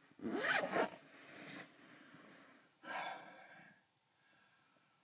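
A person settling into a sleeping bag: rustling and a loud breath about half a second in, then a short voiced sigh about three seconds in.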